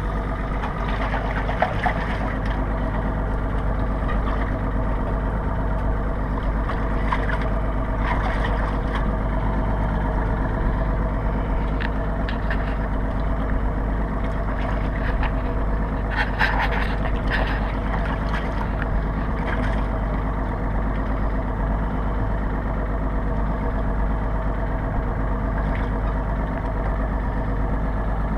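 Boat engine idling steadily, with a few light clicks or knocks just over halfway through.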